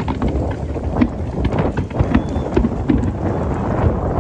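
Fireworks display heard across water: a string of sharp bangs from launches and bursting aerial shells, starting about a second in, over a steady low rumble.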